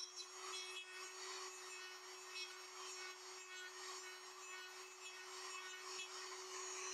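Rotary tool with a small cutoff wheel running at one steady pitch, grinding away the black plastic of a push mower's front axle mount.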